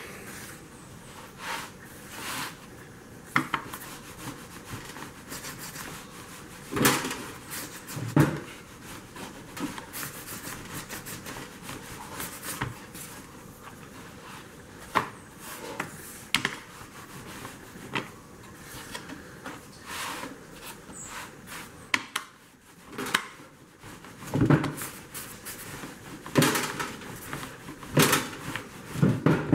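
Pizza dough being rolled out with a rolling pin on a round wooden board: rubbing strokes broken by scattered sharp knocks of wood.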